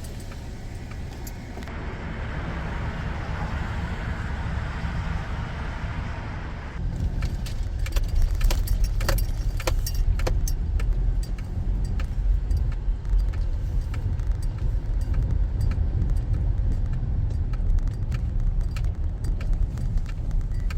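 Inside a 2014 Honda CR-V on the move: a steady low road rumble, with a stretch of hiss a couple of seconds in, then frequent small clicks and rattles from about seven seconds in, as on a rough road.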